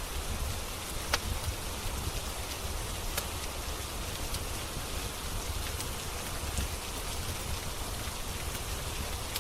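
Steady rain falling, mixed with the scattered sharp crackles and pops of a wood fire in a fireplace; the loudest pop comes about a second in.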